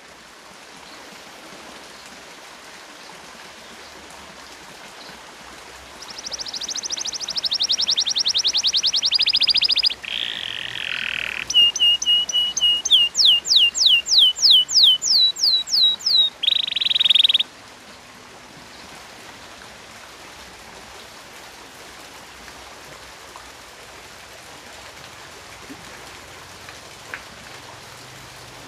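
Domestic canary singing one phrase, starting about six seconds in: a fast trill, a short buzzy stretch, a held note, a run of quick downward-sliding whistles, then a last brief buzz. Faint steady hiss before and after the phrase.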